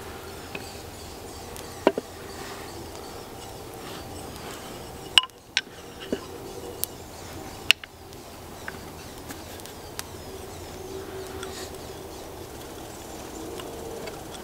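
Sharp wooden knocks and clicks as a handmade wooden frame saw is put together, its steel blade, uprights and crossbar being fitted. A handful of separate clicks come mostly in the first half, over a steady background hiss.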